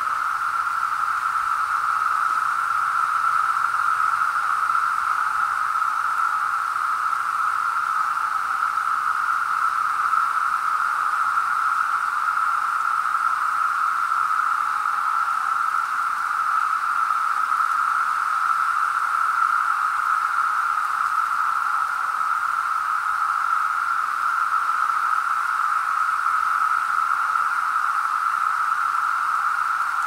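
Chorus of periodical cicadas: many insects calling together as one steady, unbroken drone.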